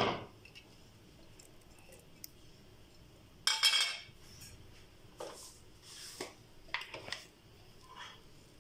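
Clinks and scrapes against a stainless steel grinder jar as grated coconut is tipped in on top of rice. A sharp knock at the start, the loudest scrape about three and a half seconds in, then a few lighter clinks.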